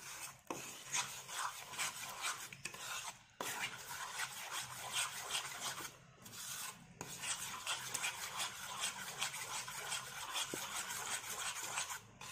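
A spoon beating eggs into chocolate cake batter by hand, scraping rapidly round a bowl, with brief breaks about three and six seconds in.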